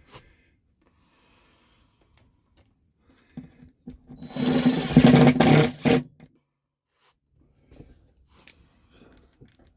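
Cordless drill-driver running as it drives a screw up into the ceiling air-conditioner assembly. It is a steady motor sound of about two and a half seconds starting a few seconds in, with a fainter, shorter run near the end.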